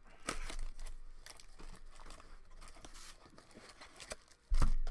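Baseball card packs and cards being handled: packaging tearing and crinkling, cards rustling as they are fanned through by hand. A loud thump comes near the end.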